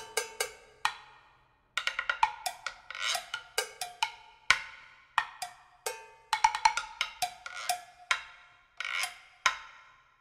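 Percussion music: a loose string of sharp struck notes at several pitches, each ringing briefly, like wood blocks or a xylophone, with a short break about a second in.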